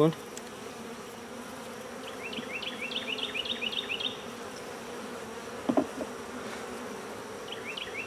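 Honey bees buzzing steadily over an open hive's frames, a steady hum. A run of quick, high, rising chirps sounds from about two to four seconds in, and a brief louder sound comes just before six seconds.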